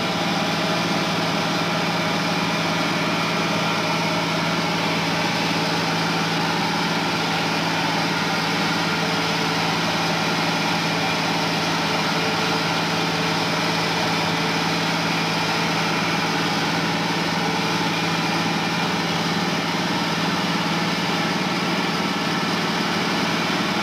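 Allis-Chalmers 8070 tractor's six-cylinder diesel engine running steadily under load while pulling a disc harrow through the millet, heard from inside the cab with a constant low drone.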